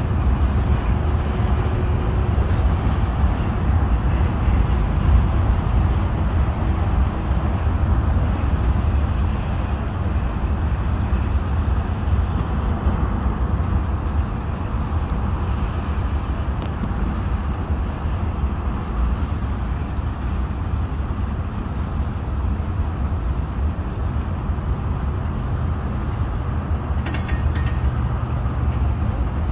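Freight train cars rolling steadily across a bridge: a continuous low rumble.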